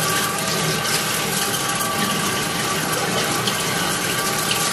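Kitchen tap running hard into a stainless steel sink as hands are rinsed under the stream: a steady, loud splashing rush with a faint steady tone beneath it.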